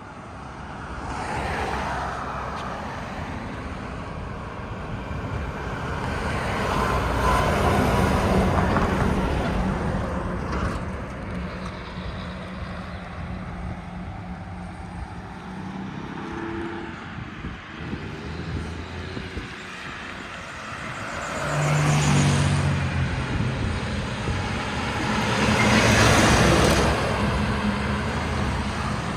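Road traffic with trucks among it: vehicles pass one after another, each swelling and fading as tyre and engine noise go by. There are about four passes, the loudest in the second half.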